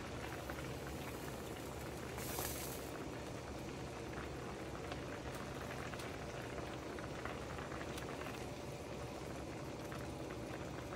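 Creamy mushroom sauce simmering in a skillet around pork chops: a steady soft bubbling with small scattered pops, and a brief hiss about two seconds in.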